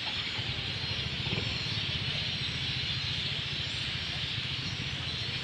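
Steady outdoor background noise: an even hiss over a low rumble, with no distinct event standing out.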